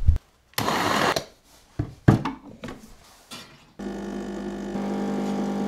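A Lelit espresso machine's pump hums steadily while pulling an espresso shot, starting about four seconds in. Before it come a brief rushing noise and a couple of sharp clicks.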